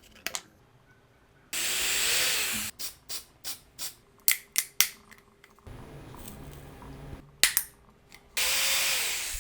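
A small electric motor running in two short bursts, its whine rising as it spins up and falling as it winds down, with a series of sharp clicks between the bursts.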